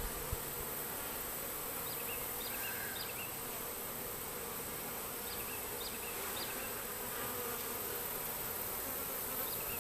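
Steady buzzing hum of a honey bee swarm clustered close by.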